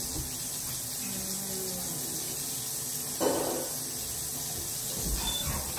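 Bathroom sink faucet running steadily into the basin, with a short louder noise about three seconds in.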